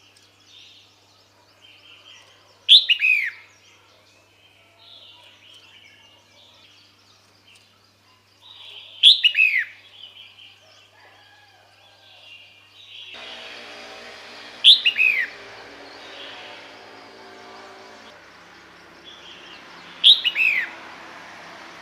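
Female red-whiskered bulbul calling: four short, loud calls that slide down in pitch, about six seconds apart, over fainter chirping.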